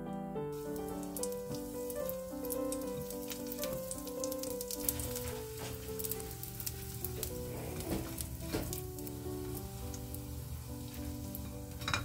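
Small patties sizzling in oil in a frying pan, starting about half a second in, with a few sharp clicks as wooden chopsticks turn them against the pan. Background music with a gentle melody plays over it.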